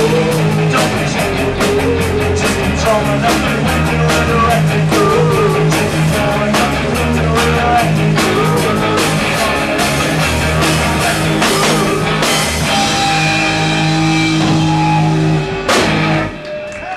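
Live rock band playing loudly, with electric guitar, bass, drum kit and singing. The full band sound drops away about a second before the end.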